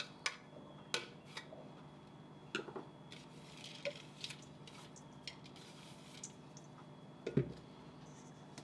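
Scattered light clicks and clinks of kitchen utensils against a stainless steel mixing bowl, with a duller knock near the end as the bowl is handled, over a faint steady hum.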